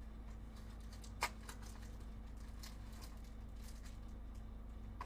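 Handling of trading card boxes and packs: one sharp click about a second in, then a few light taps and rustles, over a steady low hum.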